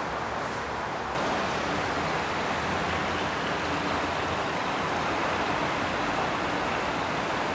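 Steady rushing splash of water from a garden fountain. It gets louder about a second in.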